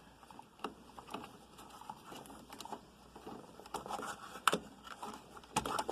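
Hands working wiring and plastic parts of a washer's lid lock back into place: light handling noise with scattered sharp clicks, the loudest about four and a half seconds in and a pair near the end.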